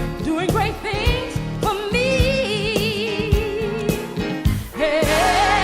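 Outro music: a song with a female-style sung melody held in long notes with vibrato, over a band backing with a steady beat.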